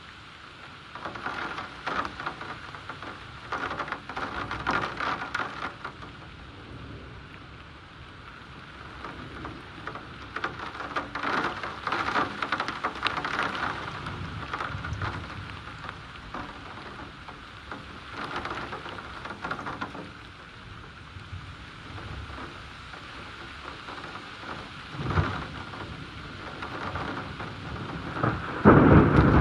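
Heavy thunderstorm rain pouring steadily, swelling and easing in waves every few seconds, with low thunder rumbling now and then and a louder peal of thunder near the end.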